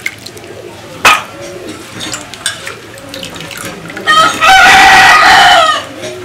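Water splashing and dripping as cut taro stolons are lifted out of a steel bowl of water, with a sharp knock about a second in. About four seconds in, a rooster crows, one loud call of nearly two seconds that rises, holds and falls away at the end.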